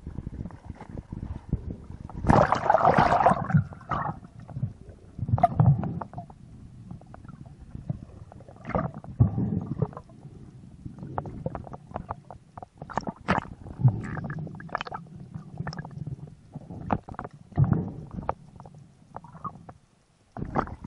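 Surface water splashing as a spearfisher dives, then muffled underwater sounds at the camera: low rumbles, bubbling and scattered sharp clicks and knocks.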